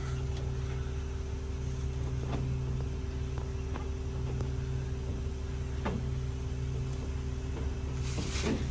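Truck engine running steadily with an even, unchanging hum, and a few faint knocks on top.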